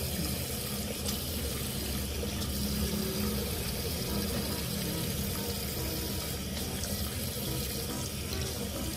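Faucet running steadily into a sink, the stream splashing over hands as they rinse a baby monkey.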